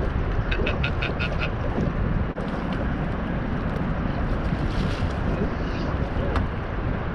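Steady low rumble of wind on the microphone aboard a boat, with a quick run of about six short calls about half a second in and a couple of sharp clicks later.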